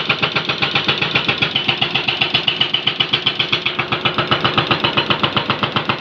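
Hydraulic breaker on a Jonyang JY623E excavator hammering on a road surface: a fast, even train of sharp metallic blows, several a second.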